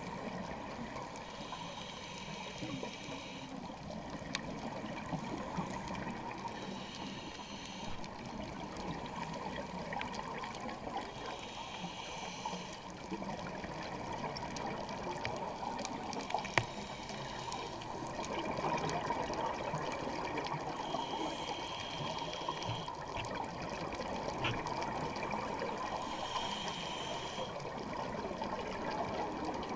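Scuba regulator breathing heard underwater: a hiss on each inhale and bubbling on the exhales, coming back about every five seconds over a steady watery wash. One sharp click about halfway through.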